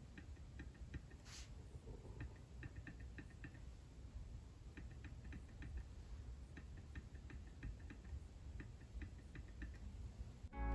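Very quiet clicks of an M1 MacBook Pro 13-inch's haptic Force Touch trackpad pressed by a fingertip, in quick runs of several clicks with short pauses between them.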